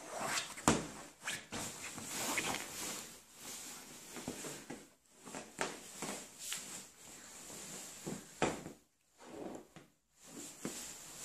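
Husky puppy pawing and nosing at a padded fabric dog bed: uneven rustling and scratching of the fabric, with scattered short knocks and scuffs.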